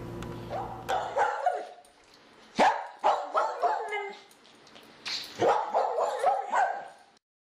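A dog barking in three bursts of several short barks each, with gaps of about a second between the bursts.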